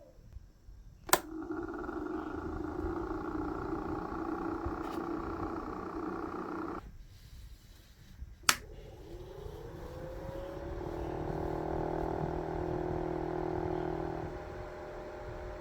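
Small electric fan motor of a homemade model air conditioner, switched on with a sharp click and running with a steady hum that stops abruptly about seven seconds in. A second click, and the motor spins up again with a rising whine before settling into a steady hum.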